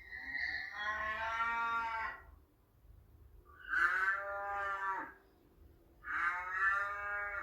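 Cow mooing three times, each a long call of more than a second with short pauses between.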